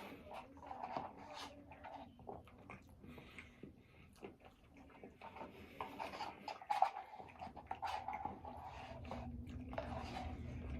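Close-miked eating sounds: chewing and wet mouth clicks and smacks, with a low hum coming up near the end.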